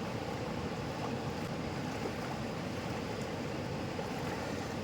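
Steady rushing of river water, an unbroken even roar with no let-up.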